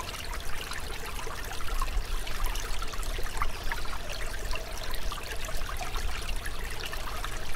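Shallow rocky stream babbling over stones: a steady rush of water with a low rumble underneath.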